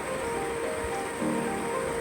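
Background music with slow held notes changing every half second or so, over a steady hiss.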